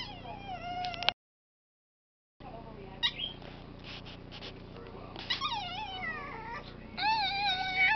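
Chihuahua whining in high, pitch-falling whimpers, several times, begging to be let up. The sound cuts out completely for about a second near the start, and a few short clicks come between the whines.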